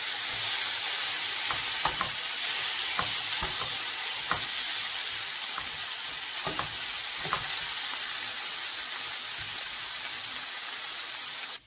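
Diced potatoes, carrots, peas and sweetcorn sizzling steadily in oil in a nonstick frying pan on a medium flame, with a spatula scraping and tapping the pan a number of times as they are stirred. The sizzle cuts off abruptly near the end.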